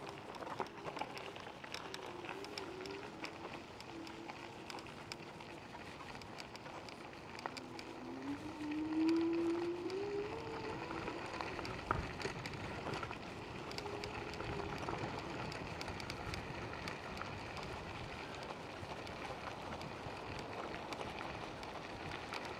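Tyres rolling over a dirt and gravel road with wind on the microphone, a steady rushing hiss full of small ticks. A short rising whine stands out about eight seconds in, and a single sharp click comes a couple of seconds later.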